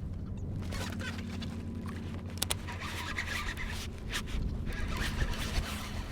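Wind rumbling on the microphone, with scattered scrapes and clicks of gear being handled in a kayak, including a sharp double click about two and a half seconds in.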